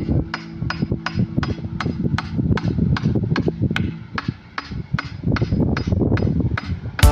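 Hammer blows struck in a steady rhythm, about three a second, during repair work on a damaged waterway.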